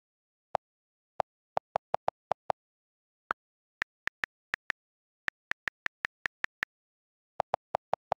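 iPad on-screen keyboard clicks, about 27 quick taps in three runs. The first and last runs click at a lower pitch, as the delete key does while text is erased. The middle run clicks higher, as letter keys do while a word is retyped.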